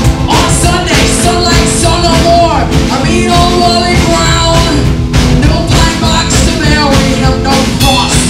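Live rock and roll band playing loud: electric hollow-body guitars, upright bass and a drum kit.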